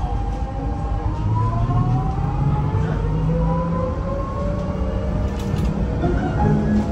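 Electric tram accelerating: the whine of its traction drive rises slowly in pitch over a low rumble of running.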